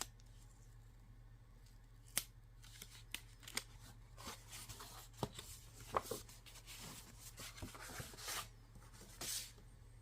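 Hands handling the paper and card packaging of a Blu-ray limited edition: a few sharp clicks, then a run of rustling, sliding and tapping, with a longer rustle near the end.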